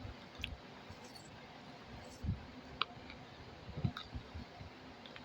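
Quiet eating sounds: a person chewing food, with a few faint clicks and soft low thumps scattered through, over a steady fan hiss.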